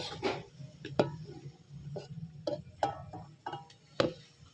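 A metal slotted spatula knocking and scraping against an aluminium kadhai while the fried grated turmeric is worked in the ghee. Irregular sharp clinks with a short metallic ring, the loudest about a second in and about four seconds in.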